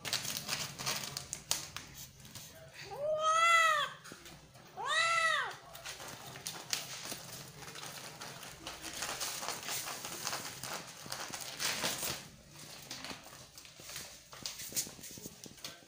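Cat meowing twice, each meow rising and then falling in pitch, the first longer than the second. Scratchy rustling comes before, between and after the meows.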